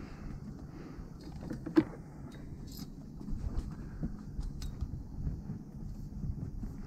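Scattered knocks and clicks of gear being handled on a small fishing boat, the sharpest about two seconds in, over a low steady rumble.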